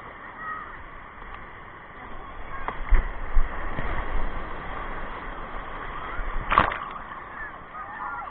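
Shallow surf washing and splashing around a camera held at water level, growing louder about three seconds in with a low rumble as a wave comes through. Water slaps against the camera twice about three seconds in and once hard near seven seconds.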